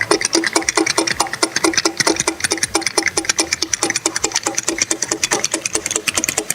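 Rapid, even mechanical clicking of a small mechanism, about seven clicks a second, starting and stopping abruptly.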